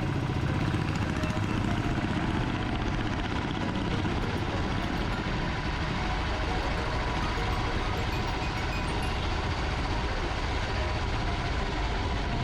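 Mumbai Metro Line 2A train running, heard inside the coach: a steady low rumble and hiss of wheels on rail, with faint steady tones from the traction drive.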